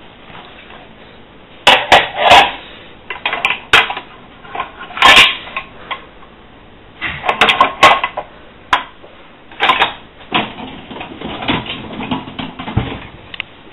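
Crockery, glassware and the wire racks of a Zanussi DA 4341 dishwasher clinking and rattling as the loaded racks are handled, in a string of irregular sharp clatters.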